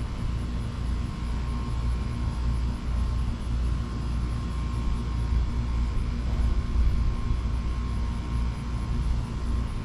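A low, steady rumble that swells and eases a little, with a faint steady high tone above it.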